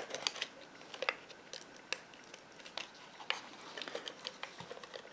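Adhesive tape runner (Stampin' Up Flink und Fest Plus) laying adhesive onto card stock, heard as light, irregular clicks and ticks.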